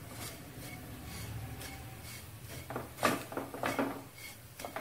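Wooden spatula stirring and scraping dry, crumbly besan chutney in a nonstick kadai, with a few louder scrapes about three seconds in over a faint steady low hum.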